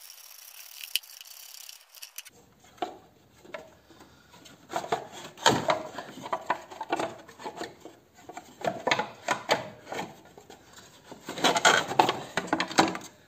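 Irregular knocks, clicks and rubbing of a plastic engine timing-belt cover and hand tools being worked free by hand, busiest near the end.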